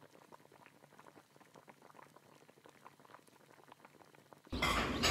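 Seafood stew (haemul ttukbaegi) bubbling faintly in a hot earthenware pot, a fine crackle of many tiny pops. Near the end a much louder rushing noise cuts in suddenly.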